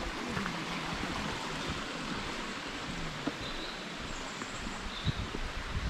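Mountain stream rushing steadily over rocks below a footbridge, with a few faint, short bird chirps in the second half and a couple of soft low thumps near the end.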